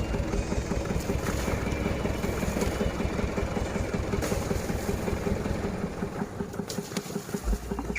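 An engine running steadily at idle, with an even pulsing rhythm.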